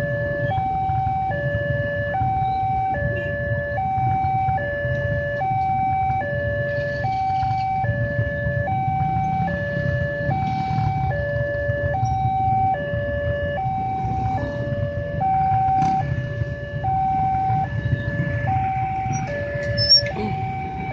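Railway level-crossing warning alarm from the loudspeaker on the signal pole, sounding a steady alternating two-tone low-high chime, about one pair a second. Under it is the low rumble of many motorcycle engines idling at the closed barrier.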